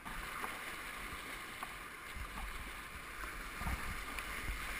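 Whitewater rapids rushing around a kayak, with the splash of paddle strokes. From about two seconds in, low rumbling swells of water buffet the boat.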